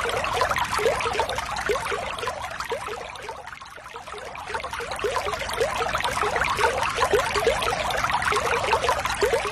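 Shallow running water trickling and bubbling, with many small gurgles, easing off briefly around three to four seconds in and then filling out again.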